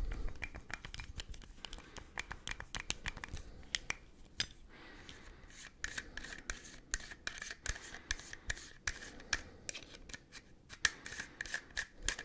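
Old Russian camera lens handled close to the microphone: a dense, irregular run of small sharp clicks and taps.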